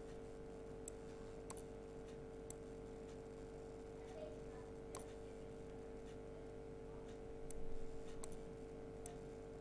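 Computer mouse clicking, about six sharp faint clicks at uneven intervals, over a steady electrical hum, with a brief soft noise about three-quarters of the way through.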